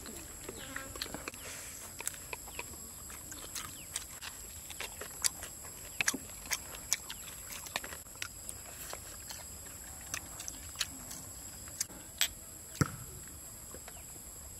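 Eating sounds: scattered small clicks and taps of chewing and of hands and spoons on plates, over a faint steady high-pitched tone.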